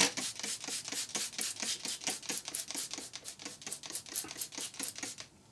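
Hand trigger spray bottle pumped rapidly onto a sponge, about five short hissing squirts a second, stopping about five seconds in.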